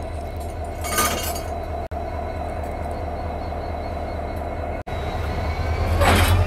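Diesel locomotive idling with a steady low drone while it is coupled to the train, growing louder near the end. Two short hisses of air cut through, one about a second in and one near the end.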